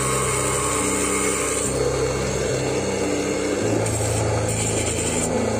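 Mini benchtop table saw running, its blade cutting through a thin white strip, with background music underneath.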